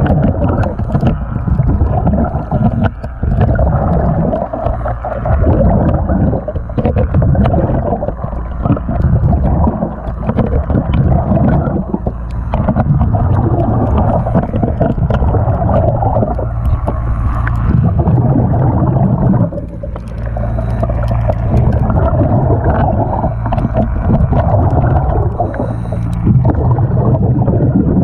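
A scraper working algae off a boat's slotted through-hull intake cover underwater: repeated scraping and clicking strokes over a steady low rumble of water.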